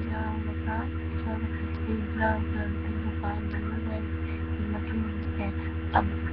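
Steady electrical mains hum with a pulsing low drone, and a single sharp click near the end.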